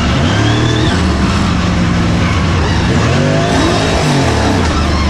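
Mud truck engine revving hard, its pitch climbing and dropping several times as the truck powers through the mud.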